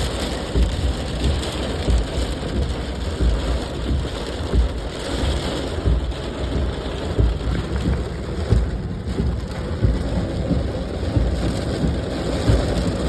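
Steady, fairly loud rain falling, with irregular low rumbling pulses underneath.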